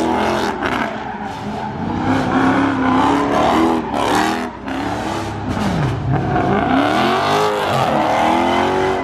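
Car engine revving hard during a burnout or donut, its pitch rising and falling over and over, with tyres squealing and spinning on the pavement.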